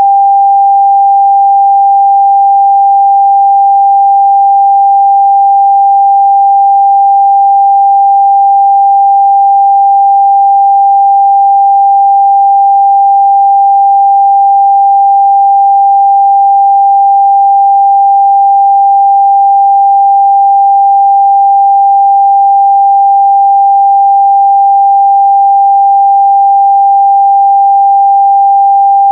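A steady, unbroken 794 Hz sine-wave test tone, a single pure pitch held at constant loudness.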